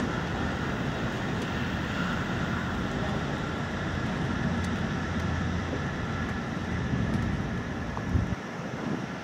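Wind buffeting the microphone: a steady low rumble over a faint outdoor background, with a couple of faint knocks near the end.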